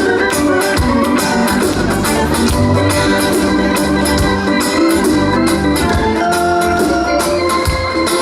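Live band music with an organ-toned keyboard to the fore, playing held chords over steady drums.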